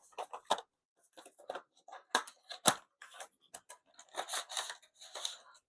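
A small accessory toolbox being opened and its tools handled: an irregular run of clicks, taps and rustles, with a few sharper knocks and a longer rustle near the end.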